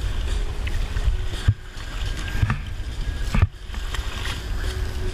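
Wind and water noise on an open boat at sea, a steady low rumble, broken by two sharp knocks, one about a second and a half in and one about three and a half seconds in.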